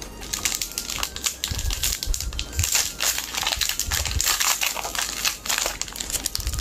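Foil booster pack of Pokémon trading cards crinkling as it is torn open by hand, a dense run of crackles.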